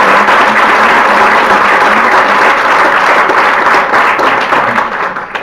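Audience applauding: dense, steady clapping from many hands that begins to thin out near the end.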